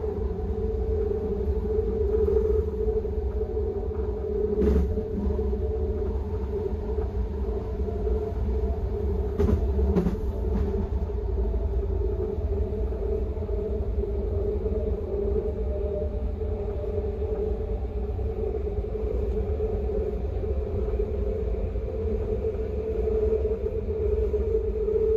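SkyTrain Expo Line train running along the track: a steady rumble with an even hum over it, and a few sharp clacks about five and ten seconds in.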